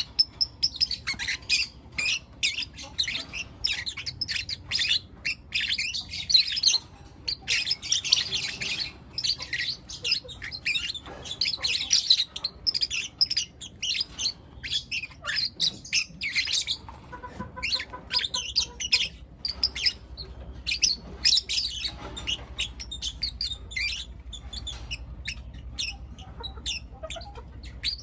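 Several young lutino lovebirds chirping and squawking over one another in quick, high-pitched bursts.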